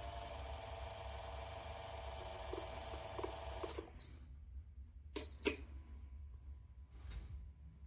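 Electric wall fan's motor humming steadily, switching off with a short high beep about four seconds in; just after five seconds there are two clicks and another beep, as of a control being pressed.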